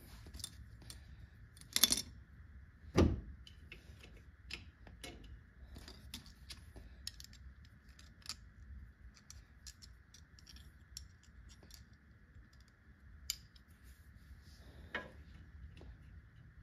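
Light metallic clicks and clinks of needle-nose pliers working a rear drum-brake shoe spring onto its pin, with two louder knocks about two and three seconds in. A faint steady hum runs underneath.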